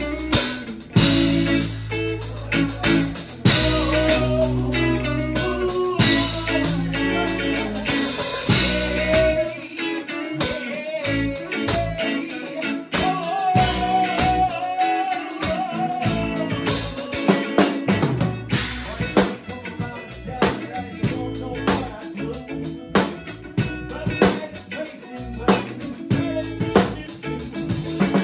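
Small rock band playing live: a drum kit with cymbals driving the beat, with electric guitar and bass guitar. The low bass notes drop away about a third of the way in while the guitar holds a lead line, then the low end comes back.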